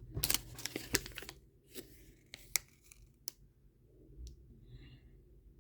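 Small plastic Lego pieces clicking and rattling as they are handled and fitted together: a quick cluster of clicks in the first second or so, then scattered single clicks.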